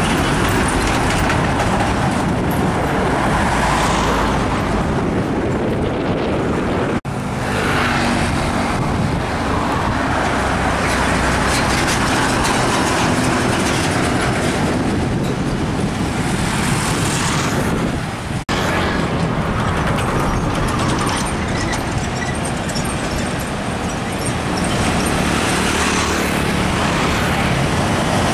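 Heavy road traffic, with diesel trucks passing close by: engine and tyre noise, loud and steady. The sound breaks off sharply twice, about seven seconds in and again about eighteen seconds in, where one stretch of traffic cuts to another.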